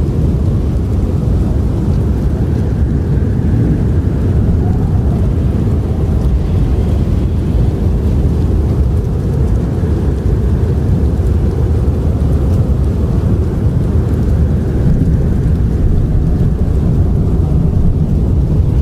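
Strong howling wind of a blizzard: a loud, steady deep rumble with faint whistling that rises and falls above it.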